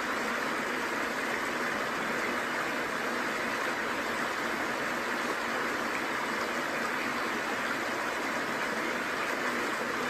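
Steady rush of a rocky stream and small waterfall, an even hiss of running water that doesn't change.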